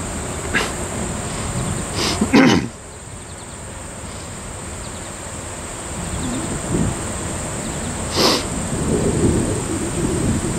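Low, uneven rumble of an approaching MLW FPA-4 diesel passenger locomotive moving slowly, with a few sharp knocks about two seconds in and again near eight seconds, over a steady high-pitched hiss.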